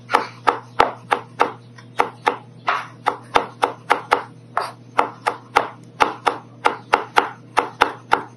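Chef's knife chopping parsley on a bamboo cutting board: an even run of sharp chops, about three a second.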